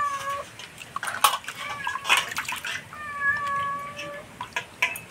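A cat meowing, a short mew at the start and a long drawn-out one about three seconds in. Under it, water splashes and clicks as a fish is washed by hand in a metal bowl.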